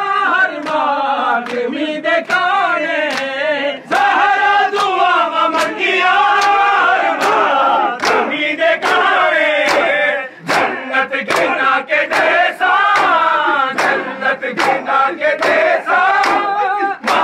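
Crowd of men chanting and shouting together in unison, with a steady rhythm of sharp slaps from hands striking bare chests in matam.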